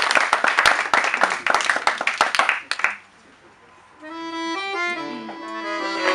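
Audience clapping, which dies away about three seconds in. After a short pause an accordion starts playing a melody, the opening of the next song.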